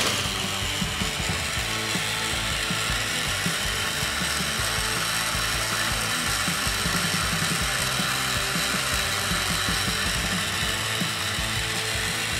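Battery-powered Plarail toy train engines (Chuggington Koko and Diesel 10) running steadily, their small motors and plastic gearboxes whirring as the two engines push nose to nose against each other on plastic track.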